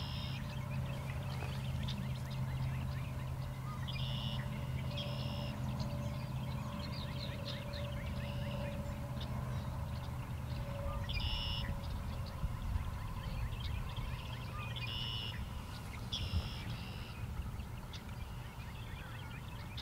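Wild birds calling at dawn: a short, high two-part call recurs every few seconds over many quick chirps. A steady low hum runs underneath.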